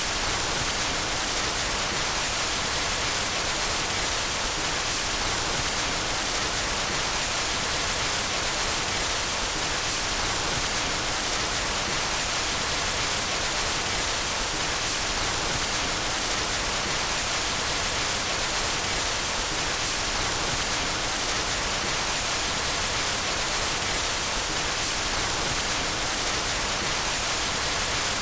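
Steady white noise: an even hiss across the whole range, brightest in the highs, with no change in level.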